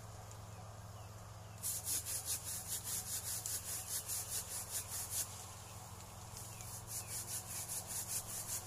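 A hand pruning saw cuts through a durian tree branch in quick back-and-forth strokes, about four a second. The sawing comes in two bouts with a pause of about a second between them.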